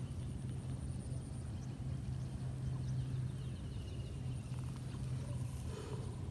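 A steady low hum, as from a distant motor, over a faint outdoor background.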